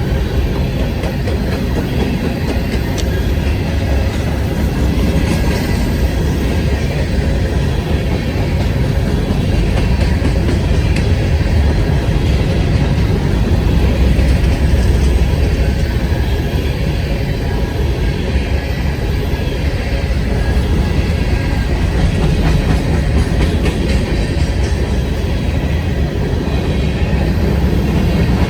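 Freight train cars rolling past close by: a steady, loud rumble and rattle of steel wheels on the rails.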